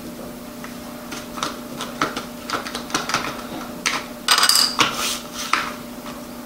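Light clicks and knocks from small objects handled on a tabletop, building to a louder clatter with a brief ringing clink about four seconds in, over a steady low hum.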